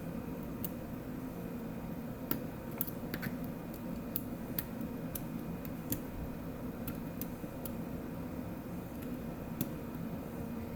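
Irregular small metallic clicks of a lock pick working the pins of a Medeco biaxial lock cylinder under tension, as the pins are set to the shear line.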